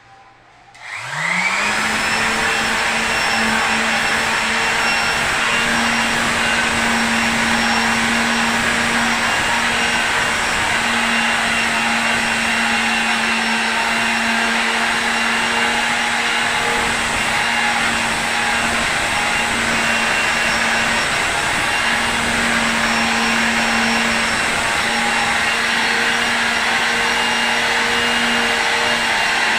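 A small electric motor, such as a woodworking power tool's, starts about a second in, winds up to speed and then runs steadily with a whirring hiss.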